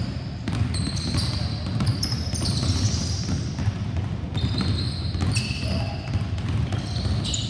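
Several basketballs dribbled at once on a hardwood gym floor, a dense overlapping patter of bounces, with short high squeaks of sneakers on the court scattered through.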